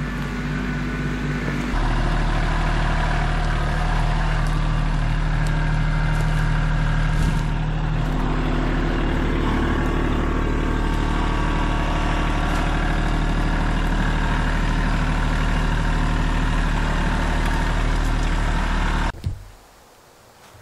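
Tractor engine running steadily while clearing brush, a low even drone. It steps up in level about two seconds in and cuts off abruptly near the end.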